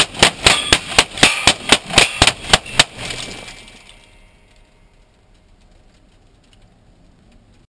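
Rapid gunfire fired into a car's windshield, heard from inside the car: about a dozen shots in under three seconds, with glass cracking. The shots stop about three seconds in, leaving a fading rattle of breaking glass.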